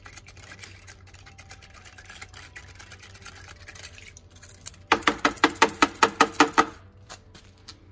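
Valve springs on a wire hanger being swished through a bucket of gun wash solvent, the liquid sloshing and swirling. About five seconds in they are shaken hard for a couple of seconds, giving a fast, even run of sharp clinks and splashes, about seven a second, before it settles again.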